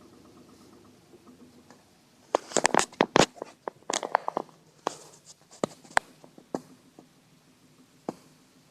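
Nissan Moco's small three-cylinder engine idling faintly with a light ticking, then falling silent about two seconds in. A quick run of sharp clicks and knocks follows, thinning out over the next few seconds.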